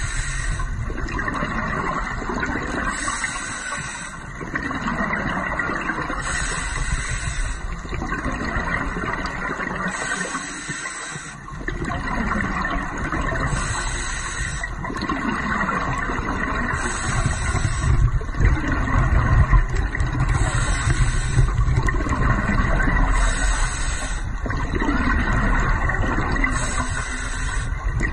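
A scuba diver breathing through a regulator, heard underwater: a hiss on each breath in and a gurgling rush of exhaled bubbles, repeating every two to three seconds over a steady low rumble.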